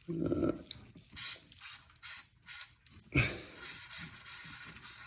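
Hand tools working on the car's air suspension compressor: a few short clicks and rasps, then a steadier hiss-like noise from about three seconds in.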